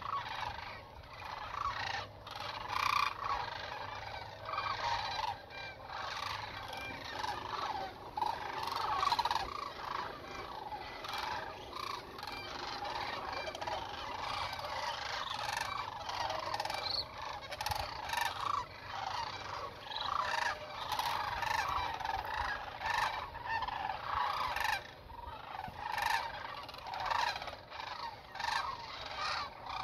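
A large flock of sandhill cranes calling, many rolling calls overlapping into a continuous chorus with no break.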